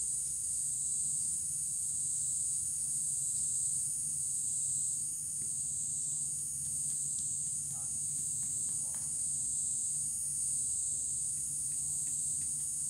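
A steady, high-pitched chorus of insects, swelling and fading slightly about once a second, over a faint low hum.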